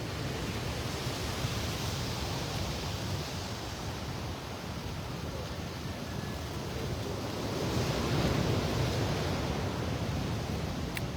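Rough sea surf washing ashore: a steady rush of waves that swells louder about eight seconds in.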